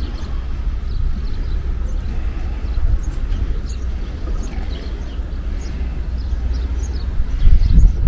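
Wind buffeting the camera microphone as a steady low rumble, with faint short high ticks scattered through and a stronger gust near the end.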